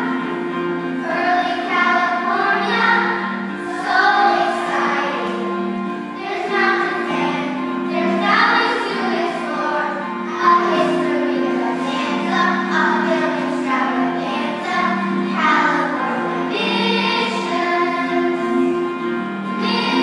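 A group of children singing a song together, with instrumental accompaniment holding steady low notes underneath.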